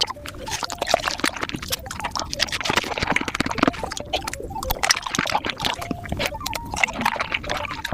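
Close-miked eating of fresh fruit, a dense, rapid run of wet chewing and crunching clicks, played back sped up.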